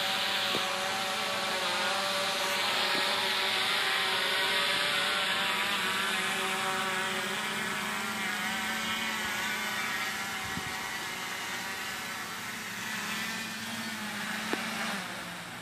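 Quadcopter's electric motors and propellers buzzing overhead, a steady hum of several tones. It slowly fades as the drone comes down to land and cuts off near the end as the motors stop.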